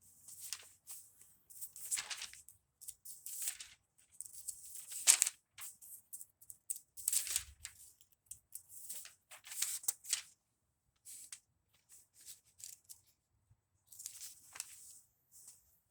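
Thin Bible pages rustling and flipping in irregular swishes as the book is leafed through to find a passage, the loudest swish about five seconds in.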